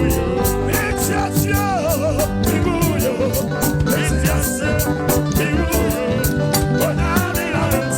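Live gospel praise band playing an upbeat groove, with a quick, steady percussive beat, a heavy bass line and a wavering melodic lead over it.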